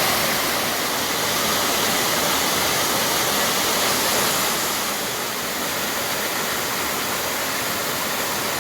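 Waterfall pouring into a rock pool: a steady rushing of falling water that eases off slightly about five seconds in.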